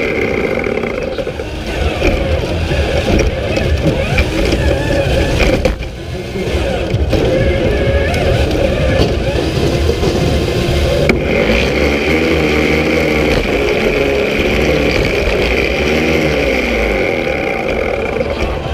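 Electric drive motors of a competition robot whining as it drives, the pitch rising and falling as it speeds up, slows and turns, over a steady low rumble of the chassis carrying the camera.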